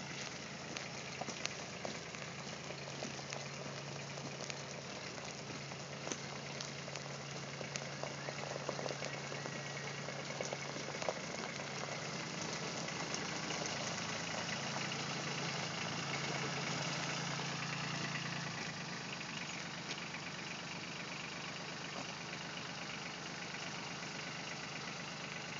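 Kubota tractor's diesel engine running steadily as the tractor drives up, growing a little louder. About three-quarters of the way through, its note drops and it runs on more quietly.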